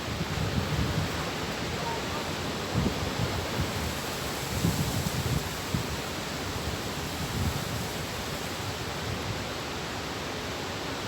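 Storm wind and rain making a steady hiss, with gusts buffeting the microphone in irregular low rumbles.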